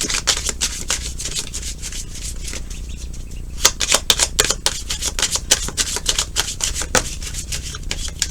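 Tarot cards being shuffled and handled by hand: a dense, irregular run of quick clicks and rustles, with a few sharper snaps.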